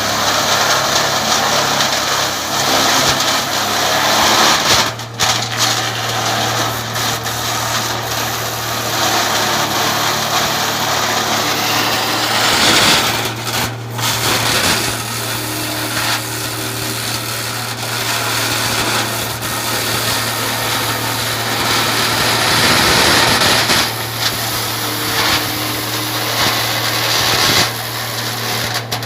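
Wood chipper (wood grinder) machine running, a steady low hum under loud grinding noise that swells and dips, with brief lulls about five and fourteen seconds in.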